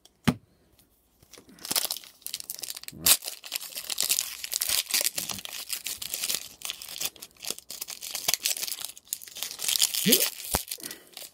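Foil Pokémon booster pack crinkling and tearing as it is worked open, a stubborn "feisty" one, with dense crackling from about two seconds in until near the end. A single sharp click comes just after the start.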